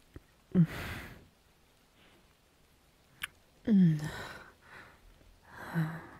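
A voice actor's breathy sighs and exhales, three of them, the middle one a longer sigh falling in pitch, with a single short click just before it.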